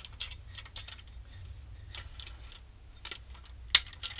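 Scattered light clicks and taps from a hard plastic paint edger being handled and turned over on a worktop, with one sharper click near the end.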